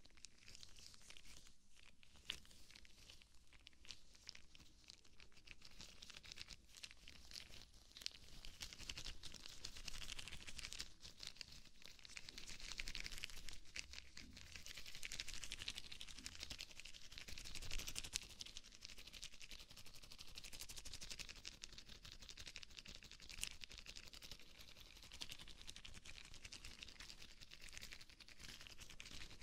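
Rubber gloves rubbing and crinkling close to a binaural microphone: a dense run of soft crackles, rustles and tiny clicks, louder through the middle.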